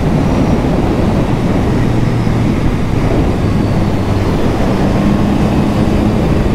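Yamaha MT-09 SP's inline three-cylinder engine running under way at moderate revs, mixed with steady wind noise on the microphone.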